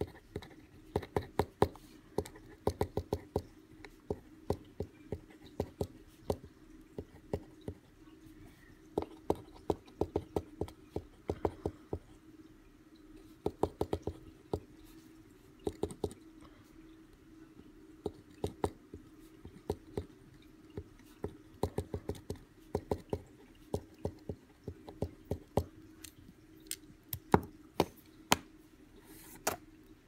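Metal mechanical pencil writing on a sheet of paper, the lead tip making clusters of sharp taps and short scratches as the letters are formed. A steady low hum sits underneath.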